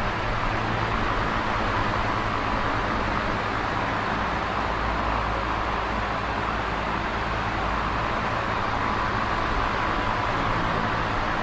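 Electric fan running steadily: a constant whoosh of moving air over a low motor hum.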